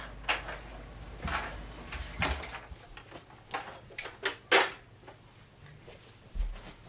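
Scattered sharp knocks and clatters, about seven in all, with a dull thump near the end: a plastic toy chain-gun blaster and its ammo belt being carried about and set down.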